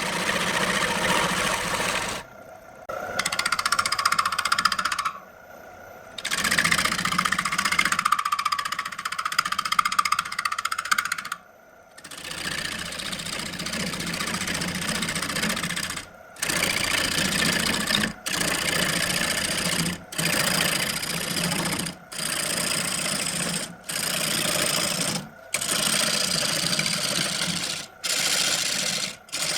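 Wood lathe running with tools working the wood. In the second half it comes in short clips that break off sharply about every two seconds.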